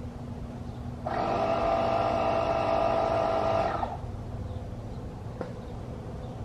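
Corded portable tire inflator running for about three seconds as it pumps air into a car tire: a steady, buzzing motor drone that starts about a second in and stops abruptly. A single click follows about a second and a half later.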